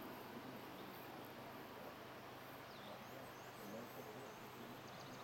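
Faint outdoor ambience: a low steady hum under a quiet haze, with a few short bird chirps scattered through it.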